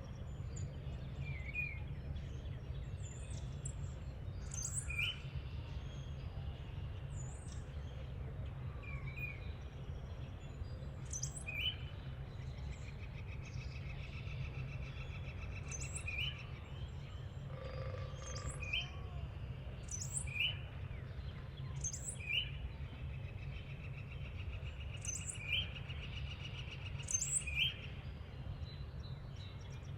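Birds chirping, with short calls every second or two and a few quick trills, over a steady low rumble.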